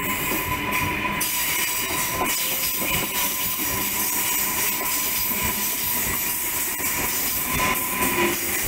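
Electric suburban train pulling out of the platform and running past close by: a steady rumble of wheels on the rails with a high steady whine that drops out near the end.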